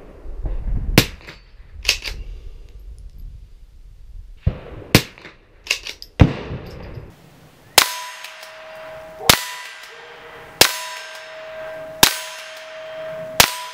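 Henry pump-action .22 rimfire rifle firing .22 LR rounds: four sharp cracks in the first half, with smaller clicks of the pump action between them. After a change in the background about halfway through, five more evenly spaced shots follow, about one and a half seconds apart, over a steady ringing tone.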